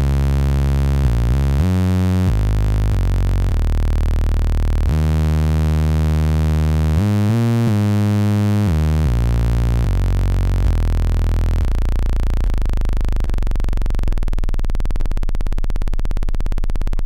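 Ensoniq ASR-10 sampler playing a rich, aliasing saw-wave waveform as a string of held notes at changing pitches. Near the end, down in the low registers, the tone slows down into a rapid stream of clicks.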